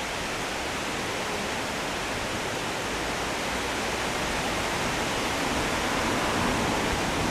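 Steady rushing hiss of outdoor noise, even and unbroken with no distinct events, growing slightly louder near the end.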